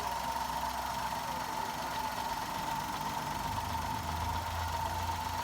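Maruti Suzuki WagonR's K-series three-cylinder engine idling steadily, with a steady high tone over it. It is misfiring on cylinders 1 and 2, the fault that the scanner reads as P0301 and P0302 and that a cracked ignition coil turns out to cause.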